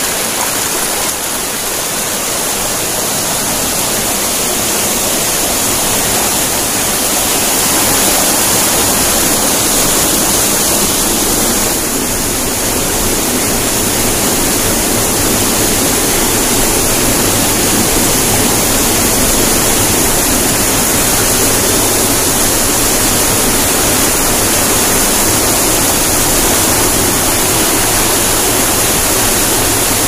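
Shallow mountain stream rushing over rocks: a loud, steady rush of water.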